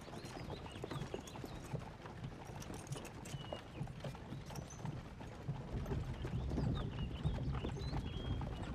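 Horses walking on a dirt road, hooves clopping in an irregular patter.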